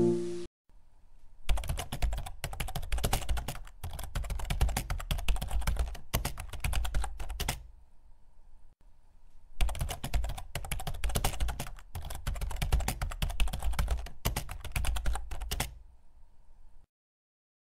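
Computer keyboard typing sound effect: rapid keystrokes in two runs of about six seconds each, separated by a pause of about two seconds, as text types itself out on screen.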